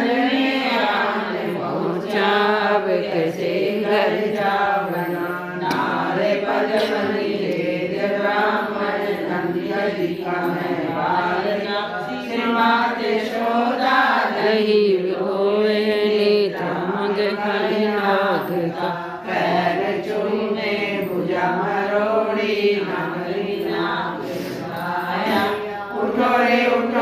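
A group of women singing a Hindi devotional bhajan together, a chant-like Krishna song sung continuously in a repeating melody.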